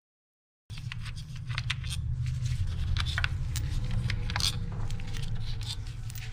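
Scattered light clicks and scrapes of hand tools and small metal parts being handled at the engine, over a steady low rumble. It starts abruptly under a second in.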